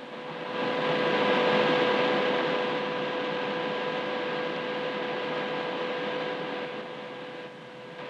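Observation tower's caged lift running: a steady mechanical whirring hiss that starts about half a second in, is loudest for the next second or so, then holds steady and drops away near the end. A faint steady hum lies underneath.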